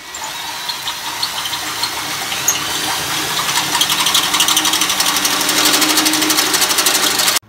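Power drill running a 3/4-inch hole saw through the wall of a swamp cooler cabinet, cutting a hole for the wiring harness. The cutting noise gets louder and rougher, with a fast chatter, from about halfway, then stops abruptly near the end.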